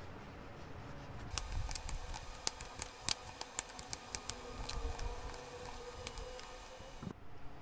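Kitchen knife slicing raw sweet potato into sticks on a wooden cutting board: a string of sharp, irregular taps as the blade goes through and hits the board, about three a second, starting about a second and a half in and stopping after about six seconds.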